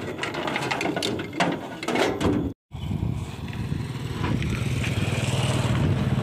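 Metal chains and a steel pulling rig clattering and knocking as they are handled on a pickup's wooden bed. After a short break, an engine runs steadily at idle.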